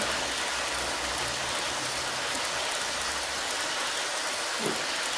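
Märklin HO-scale three-rail model train rolling past on the layout's track: a steady rushing noise of wheels on the rails and the locomotive's motor.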